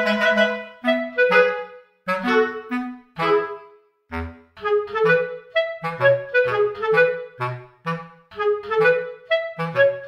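Background music: a light tune in short, separate notes over a lower bass part.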